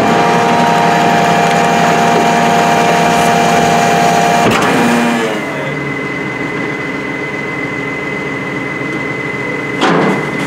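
Heil Retriever side-loader garbage truck running fast with a steady whine, then dropping to a quieter idle about halfway through. A short burst of hiss comes near the end.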